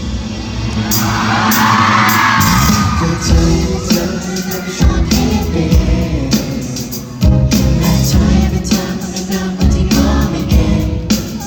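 Loud pop music with singing and a driving beat, with a crowd screaming and cheering over it, loudest about a second to three seconds in.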